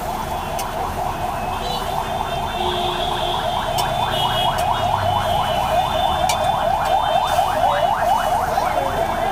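Leaf fritters frying in oil on a flat iron griddle, under a fast, steady run of short rising chirps, about seven a second, of unclear origin.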